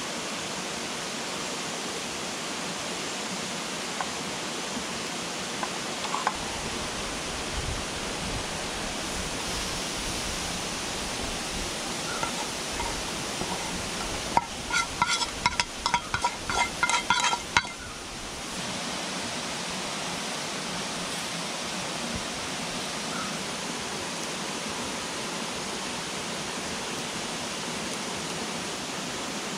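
Steady rushing of river water. About halfway through, a rapid run of short, high-pitched sounds lasts some three seconds.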